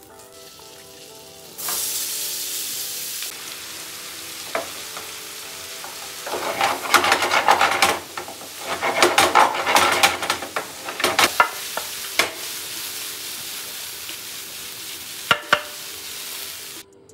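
Food sizzling as it fries in oil in a pan, with a spatula stirring and scraping against the pan in two spells about six and nine seconds in, and a few sharp clicks later. Faint background music with held notes underneath; the sizzle cuts off suddenly near the end.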